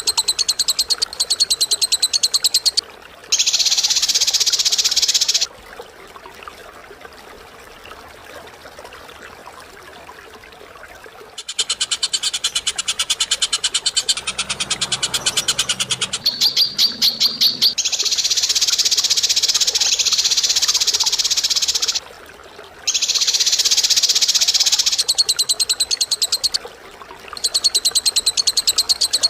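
Harsh, rapid bird calls: fast chattering trills and grating, hissy calls in phrases a few seconds long, with a quieter gap of several seconds near the middle.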